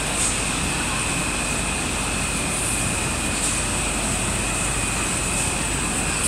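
PE stretch film production machine running: a steady mechanical noise with a constant high-pitched whine, and a few short hisses.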